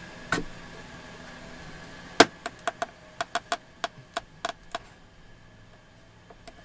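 A single knock, then about two seconds later a sharp click followed by a quick, irregular run of about a dozen lighter clicks lasting some two and a half seconds: hard objects being handled and tapped together.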